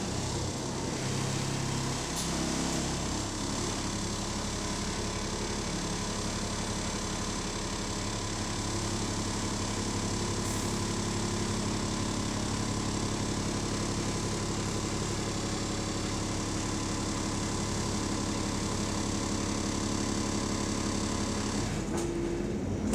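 Diesel engine of an Arriva London T-class bus running steadily, heard from inside the passenger saloon; the engine note shifts about a second before the end.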